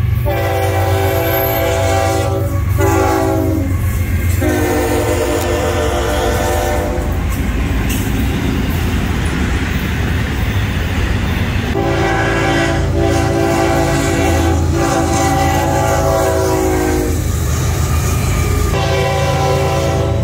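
Florida East Coast Railway diesel freight locomotives passing while sounding their air horn, a steady chord in several blasts: long, short, long, then after a few seconds one held about five seconds, and another near the end. Under the horn the engines rumble steadily, and between blasts comes the noisy rush of the train going by.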